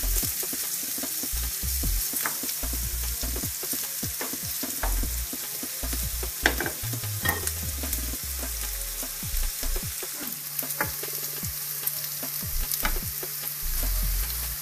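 Bacon and onions frying in a pan: a steady sizzle with scattered sharp pops and crackles.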